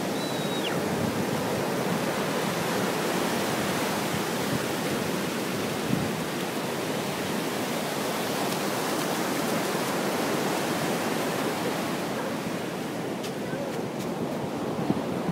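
Ocean surf washing onto a beach: a steady rush of breaking waves.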